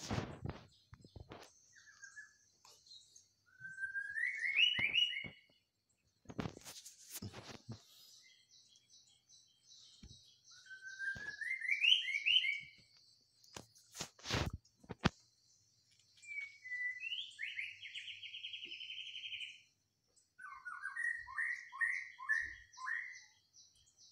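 Birds singing: two rising whistled phrases, then a fast trill and a run of short repeated notes. A few sharp knocks fall in between.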